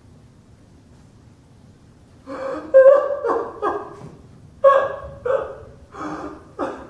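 A man's acted sobbing: loud, gulping sobs in two bouts of about four each, starting about two seconds in, with only room tone before.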